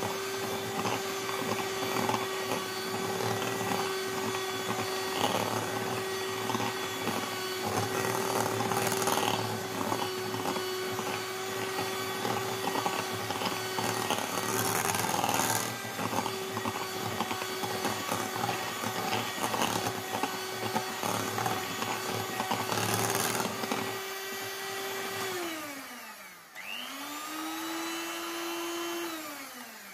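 Electric hand mixer running steadily, its beaters creaming butter and sugar in a glass bowl. About 25 seconds in, its motor winds down, starts again at a lower speed for a few seconds, then winds down to a stop near the end.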